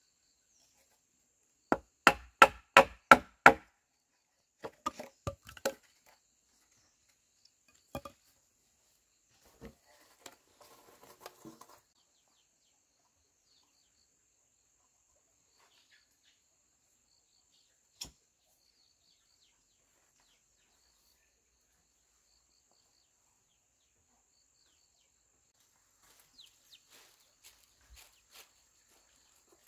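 Chopping blows on wood: a quick run of six sharp strikes about two seconds in, about three a second, then a shorter run of quieter strikes a few seconds later. After that come a few scattered knocks and some light clatter, with long quiet gaps between them.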